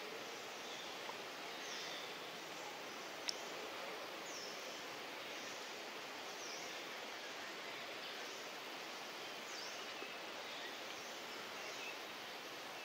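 Steady outdoor background hiss with a bird's short, high, falling chirps repeating every couple of seconds, and one sharp click about three seconds in.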